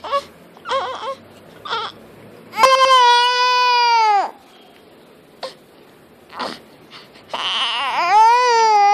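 Young infant crying: a few short fussy cries, then two long wails, the first about two and a half seconds in and the second near the end.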